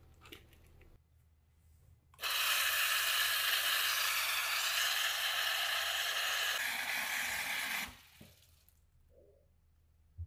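Kitchen tap running into a stainless steel saucepan in a metal sink, filling it with water for boiling. The steady rush of water starts suddenly about two seconds in and stops about three-quarters of the way through.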